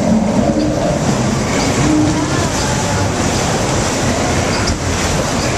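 Log flume ride running: a loud, steady rumble and rattle of the ride, heard from inside the log.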